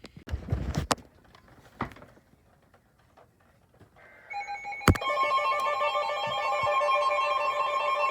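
Emergency alert tone: an electronic alarm of several pitched tones warbling rapidly, starting about four seconds in after a few knocks and clicks. It signals an incoming warning.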